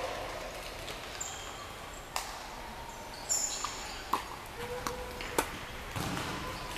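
Tennis ball on an outdoor hard court heard from the far end: a few sharp pops spread out as the ball is bounced, struck on the serve and bounces, the loudest about five seconds in, with birds chirping briefly in the background.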